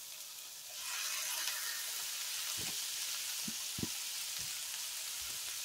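Diced bell peppers and onions sizzling in a hot skillet as raw ground beef is pressed in to brown. The sizzle grows louder about a second in and stays steady, with a few soft low knocks from the meat being handled in the pan.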